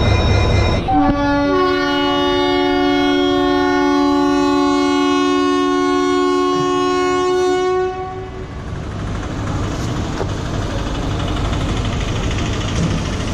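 Indian Railways locomotive horn sounding one long two-note blast of about seven seconds, the second note joining a moment after the first. After it stops, a steady rumble of train and station noise.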